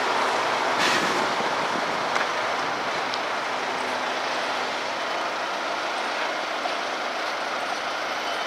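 Steiermärkische Landesbahnen diesel locomotive running slowly past, hauling container wagons: a steady engine and rolling noise that eases a little, with a couple of faint clicks.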